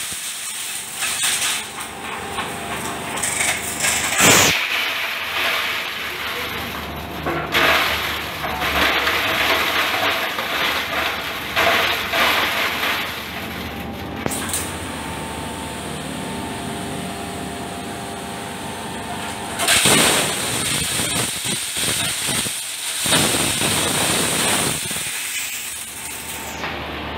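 Electric hammer mill grinding coconut shells: the motor-driven rotor runs steadily while the hard shell pieces crackle and clatter as they are smashed. Louder surges of crackling come and go as shell is fed in, with a steadier stretch of machine running in the middle.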